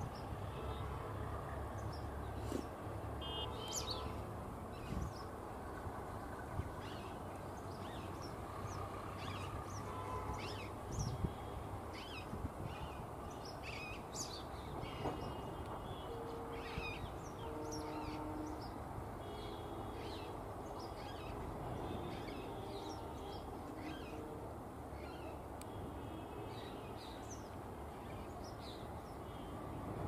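Small birds chirping, with many short, sharp calls scattered all through, over a steady background rush of outdoor noise.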